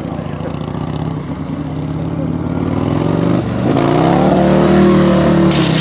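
Stunt motorcycle engine running steadily at low revs, then revving up about three seconds in, its note rising and getting louder as the bike circles closer.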